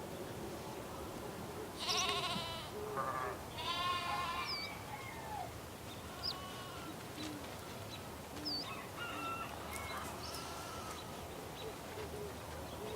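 Sheep bleating in farm ambience: two loud, wavering bleats about two and four seconds in, with shorter bleats around them. A few short bird chirps sound over a steady background hiss.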